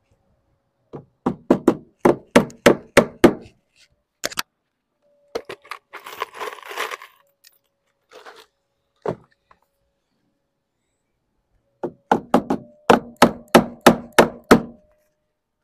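Hammer driving nails to fix a lead dormer cheek to its timber framing: two quick runs of about eight blows each, one starting about a second in and one about twelve seconds in. Between them come a brief scrape and a couple of single knocks.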